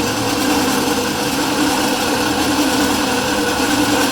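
Harbor Freight green bandsaw dry-cutting a thick-walled (0.079 in) titanium elbow with a 14-tooth-per-inch Lenox blade. The motor and the blade biting into the titanium make a steady running grind with a few held tones.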